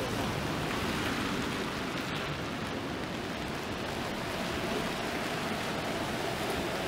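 Steady rain on a city street: a continuous even hiss, mixed with the swish of traffic on the wet road.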